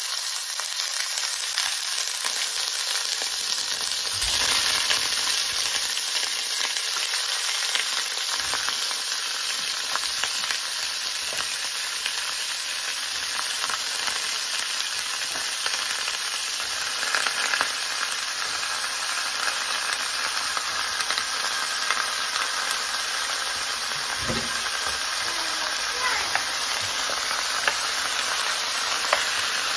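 Pieces of pork backbone sizzling in hot oil in a frying pan as they are laid in, a steady hiss with a few knocks. Near the end a wooden spoon stirs and turns them in the pan.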